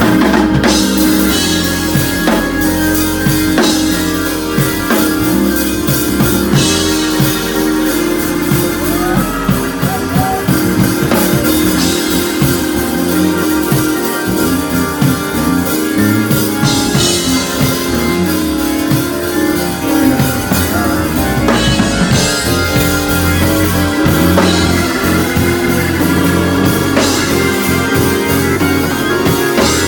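Gospel band jamming live: drum kit playing busy fills with cymbals crashing every few seconds, over sustained organ and keyboard chords and electric bass.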